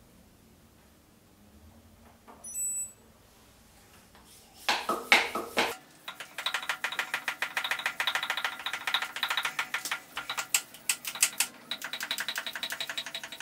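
Background music, with a dense plucked, strummed texture, starts about five seconds in and carries on. Before it there is quiet room tone with one brief clink a couple of seconds in.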